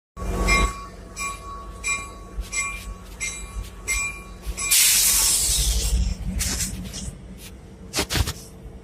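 Locomotive bell ringing with a steady swing, about three strikes every two seconds. A loud hiss of released steam or air breaks in about five seconds in, and the bell falls silent.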